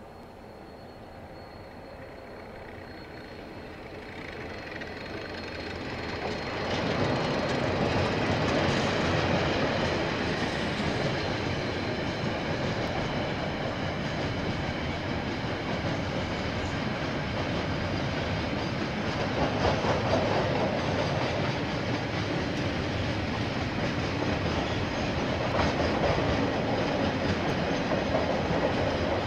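KiwiRail freight train passing with a line of container wagons. It grows louder over the first seven seconds or so, then the wagon wheels on the rails give a steady loud noise to the end.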